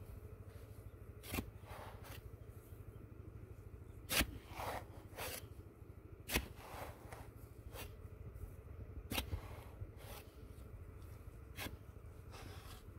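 Irregular scraping and rustling, with sharp clicks and knocks at uneven gaps, loudest about four and six seconds in, over a faint low rumble.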